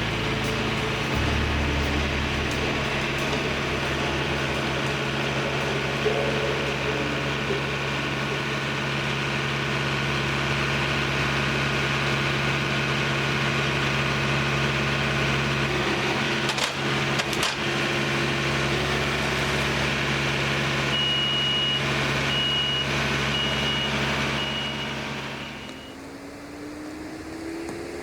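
An engine running steadily, then dropping off sharply about 25 seconds in. Just before it drops, a run of short, high-pitched beeps sounds.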